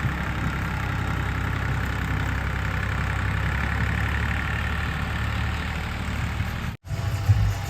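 Diesel engine of a JCB 3DX backhoe loader running steadily at a low, even speed. Near the end the sound breaks off for an instant and comes back louder and more uneven.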